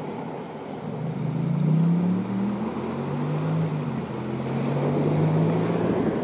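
A motorboat engine droning, rising a little in pitch about a second and a half in and then holding steady, over a constant wash of water and wind noise.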